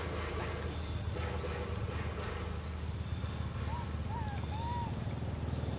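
Outdoor ambience around foraging macaques: a steady low rumble, short high chirps repeating every half second to a second, and three short rising-and-falling calls about four seconds in.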